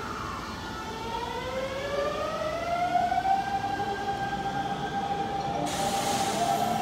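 Hanshin 5500-series electric train pulling away, its inverter-driven traction motors making a gliding whine that climbs in pitch and then levels off as it accelerates. A short burst of hiss comes near the end.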